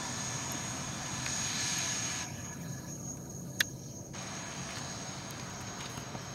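Learjet 45's twin turbofan engines at takeoff power as the jet rolls down the runway: a steady rush of jet noise with a thin high whine. A single sharp click about three and a half seconds in.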